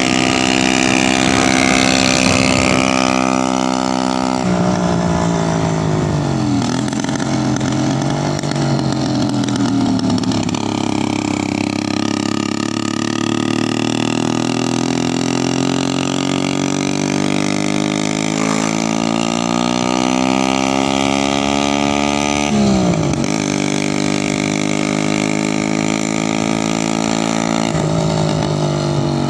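Motorcycle engine running on the road, its pitch falling and rising with throttle changes, with a sharp drop and quick recovery about 23 seconds in.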